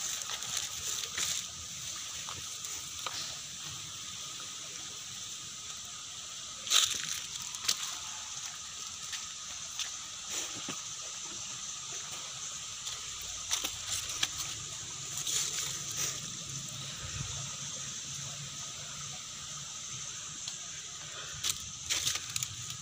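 Shallow river flowing steadily past a muddy bank. Occasional sharp clicks and rustles of footsteps close by are loudest about seven seconds in and again near the end.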